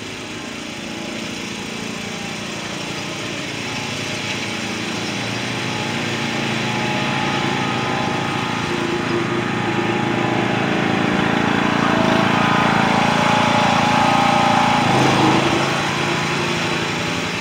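Riding lawn mower engines running, growing steadily louder as a John Deere riding mower drives up close. The sound is loudest a few seconds before the end, then eases off slightly as the mower passes.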